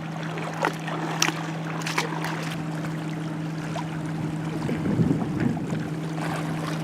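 Shallow water sloshing and splashing around wading feet, with wind on the microphone and a steady low hum underneath. There are a few sharp clicks in the first two seconds and a louder swirl of water about five seconds in.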